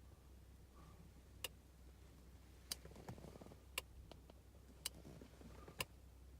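Sharp, single clicks from behind the centre console of a BMW MINI Cooper S (R53) with the engine off, five of them at roughly one-second intervals. It is an unexplained noise that the owner takes for a relay or some switch operating.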